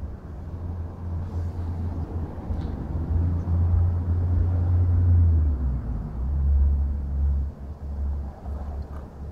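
Low, uneven rumble of wind buffeting the microphone, swelling and easing.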